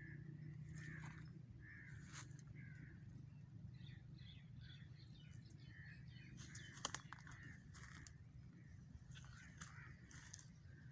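Faint birds calling over and over, short calls repeating every half second or so, over a low steady hum, with a few sharp snaps, the loudest a close pair about seven seconds in.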